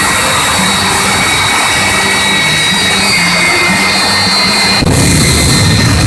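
Shockwave jet truck's three jet engines running on the start line: a loud, steady roar with a high turbine whistle over it. About five seconds in the sound turns suddenly deeper and louder as flame blasts out of the rear exhausts, the afterburners lighting.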